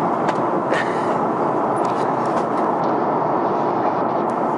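Steady airflow and engine noise on the flight deck of an Airbus A330-300 in flight, with a few faint clicks in the first couple of seconds.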